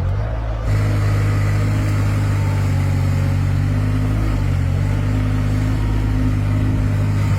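Excavator's diesel engine running steadily at a constant pitch, stepping up in level just under a second in.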